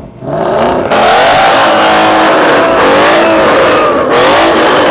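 Ford Mustang GT 5.0-litre V8 engines revved, loud, the exhaust note rising and falling in pitch repeatedly, with a short drop about four seconds in.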